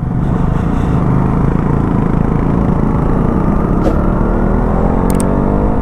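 Motorcycle engine running under way, its note rising steadily through the second half as the bike accelerates.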